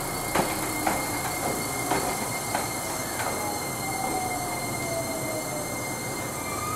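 JR Kyushu 885 series electric express train rolling past along the platform: wheels clacking over rail joints several times, with a steady high-pitched squeal throughout and a lower whine that falls in pitch through the middle.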